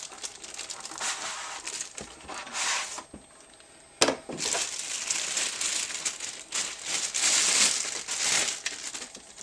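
Packaging rustling as the CPU cooler is slid out of its box, in stretches with a short pause around three seconds in. A sharp click comes about four seconds in.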